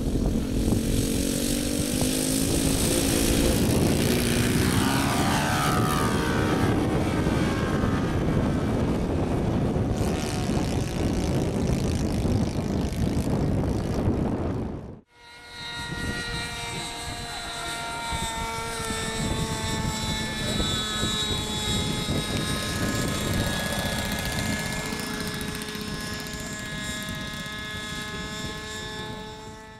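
Scale Piper Cub radio-controlled model airplane's engine and propeller, loud at full throttle on the takeoff run and climb-out, its pitch sliding as it passes. It breaks off abruptly about halfway, then runs steadier and quieter in flight.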